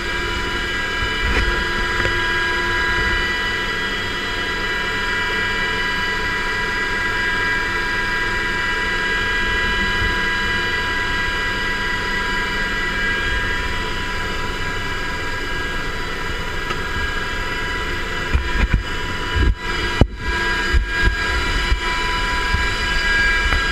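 Steady drone of an MH-60S Seahawk helicopter heard inside its cabin: engine and rotor roar with several steady high whines. A few knocks and bumps come near the end.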